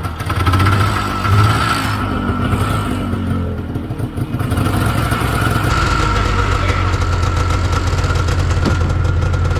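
Yamaha VMAX 600 snowmobile's two-stroke engine running just after a hard start. It runs unevenly for the first few seconds, as though it might stall, then settles into a steadier, slightly louder run from about halfway.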